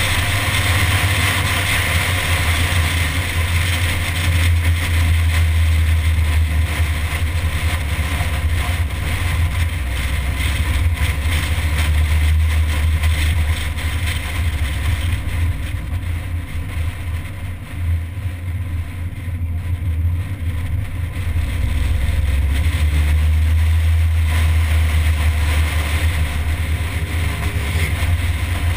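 A MINI driving at road speed on a winding road, heard from a camera on its bonnet: a steady wind rumble on the microphone over engine and tyre noise, easing briefly a little past halfway.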